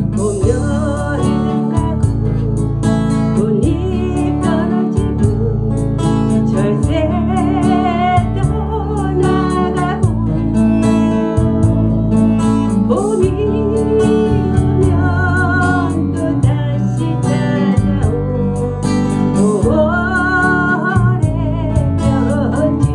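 A woman singing a slow Korean ballad, accompanied by a strummed steel-string acoustic guitar, with vibrato on her long held notes.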